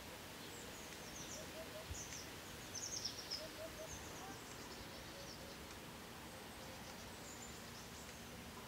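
Eurasian hoopoe singing its low hooting 'oop-oop-oop' song, faintly: two short three-note phrases in the first half. Small birds' high chirps are heard at the same time.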